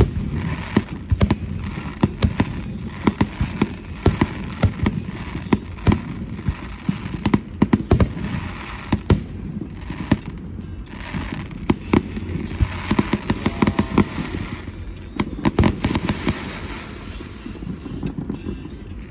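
Fireworks display: a dense, irregular barrage of bangs from shells bursting overhead, with crackling between the bursts.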